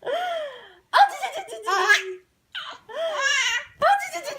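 A baby laughing in about four short high-pitched bursts, each rising and falling in pitch, with brief pauses between them.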